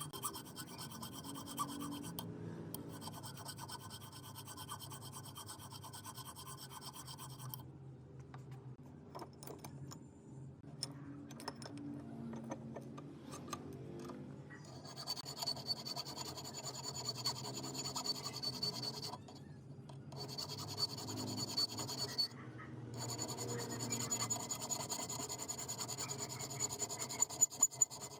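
Scratching and rubbing on the spray gun's parts during restoration work, with a thin steady high whine that stops and starts several times and a few sharp clicks near the end.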